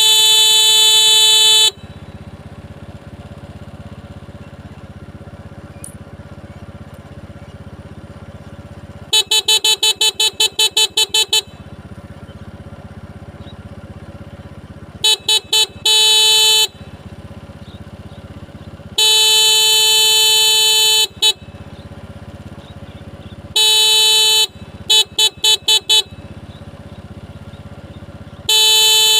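Motorcycle horn honked to call water buffalo: long steady blasts alternating with quick runs of short toots, about five toots a second. A steady low hum runs underneath between the honks.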